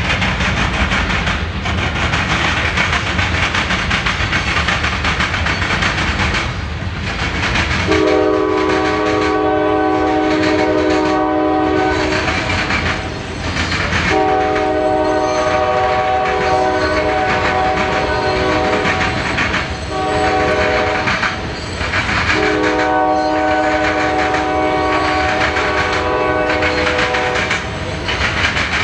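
Freight train rolling past with steady wheel-on-rail noise. A little over a quarter of the way in, a locomotive's multi-note air horn starts sounding a chord in long blasts: long, long, a short one, then long, the pattern of a grade-crossing signal.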